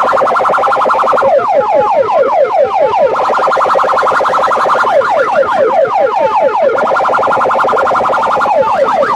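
Electronic alarm siren cycling through its tone patterns: a rapid pulsing tone for about two seconds, then a run of quick falling chirps, repeating over and over.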